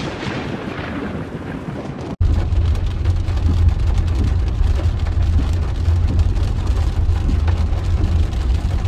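A thunderclap from a close lightning strike dying away into a rumble; about two seconds in it cuts to a car driving through a flooded street in rain, a steady low rumble under the hiss of water and rain.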